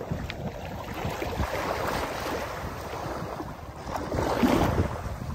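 Wind buffeting the microphone over small waves washing in ankle-deep sea water at the shoreline, a steady rushing noise. A brief voice-like sound comes about four and a half seconds in.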